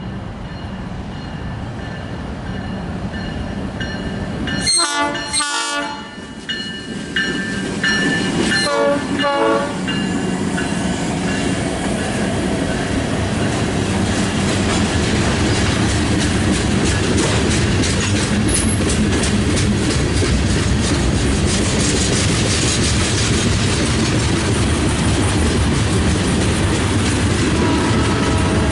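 Union Pacific local freight train's diesel locomotive horn, sounding two short blasts about five seconds in and another about nine seconds in. The train then passes with a steady rumble and the clatter of wheels over the rail joints.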